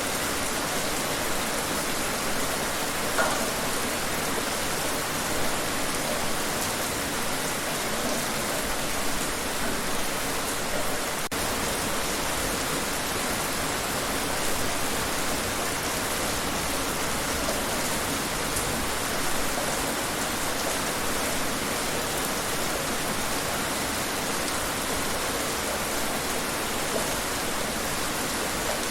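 Steady rain falling, an even hiss of many drops on a surface with a few louder drops standing out here and there.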